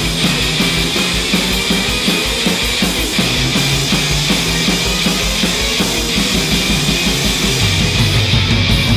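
Post-punk rock band recording playing an instrumental stretch, with a steady drum beat and a repeating bass riff, and no vocals.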